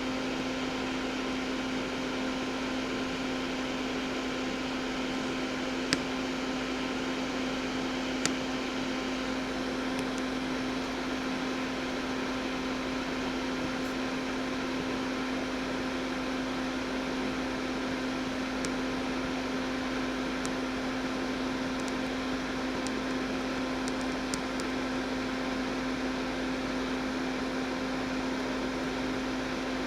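Fume vent fan running steadily, a constant hum with an airy rush. A couple of small clicks sound over it about six and eight seconds in, with a few fainter ticks later.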